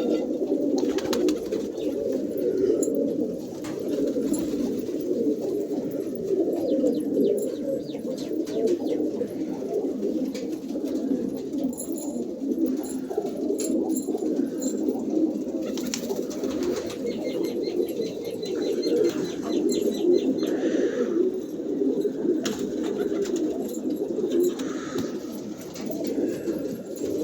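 A flock of fighter fancy pigeons cooing together in a continuous, overlapping chorus, with occasional sharp clicks.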